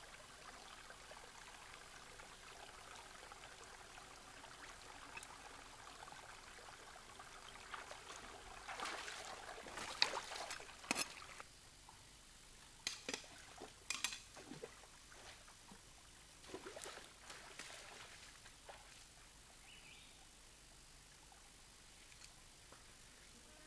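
Shallow stream water trickling among rocks, with splashing and stones knocking about a third of the way in. After a sudden drop in the water sound, scattered footsteps and sharp clacks of stones over dry river rocks.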